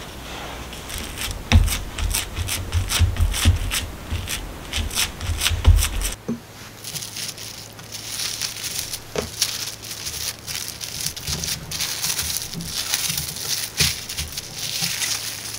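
Hands pressing a ball of cookie dough flat on plastic wrap, with soft dull thumps and crinkles for about six seconds. Then the cling film crinkles and rustles steadily as it is folded and smoothed over the dough.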